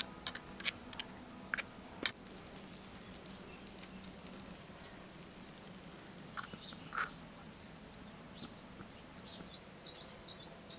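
A small metal spoon clinks against a tiny cooking pot a few times in the first two seconds while the sambar is stirred. After that, outdoor quiet with small birds chirping, more often near the end.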